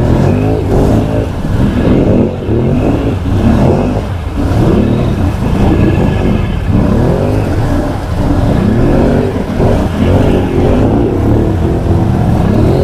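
Can-Am Outlander XMR ATV's V-twin engine revving up and down over and over, loud and continuous, as the quad works through mud.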